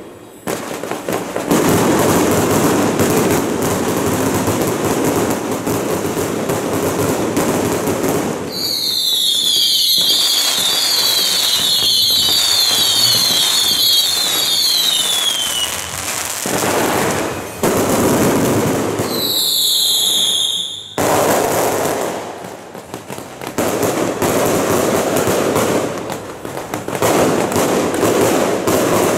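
Firecrackers and fireworks going off in a dense, continuous crackle, with many overlapping shrill, slightly falling whistles from whistling fireworks from about 9 to 16 seconds in and a few more around 20 seconds.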